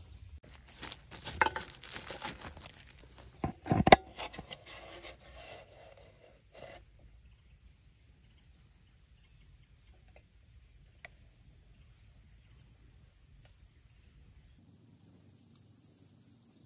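Steady high chirring of insects, with a burst of clatter and sharp knocks from handling in the first several seconds, the loudest knock just before four seconds in. The chirring stops abruptly about fourteen seconds in, leaving faint quiet.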